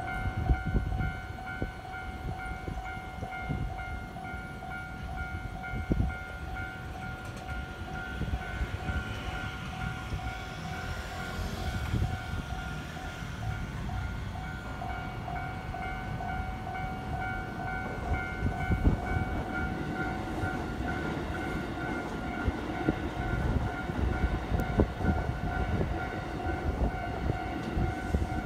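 Parked Keikyu electric trains idling: a steady, slightly pulsing electrical whine from their on-board equipment, over a low rumble with a few knocks.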